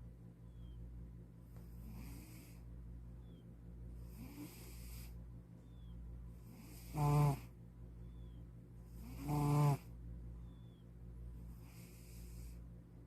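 A white cat snoring in its sleep, with a breath about every two and a half seconds. Two of the snores, about seven and nine and a half seconds in, are much louder and pitched.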